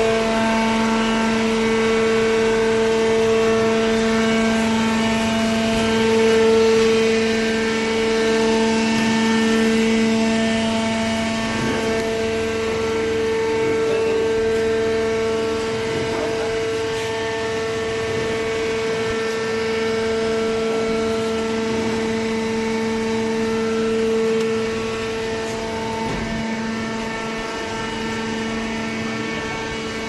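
Hydraulic baler's electric motor and hydraulic pump running, a steady pitched hum with a clear set of overtones that holds without change.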